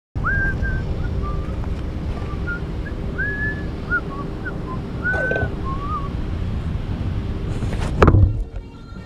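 Wind buffeting a ground-level action camera's microphone as a low rumble, with short, irregular whistled chirps and rising glides over it. A loud knock lands close to the microphone about eight seconds in.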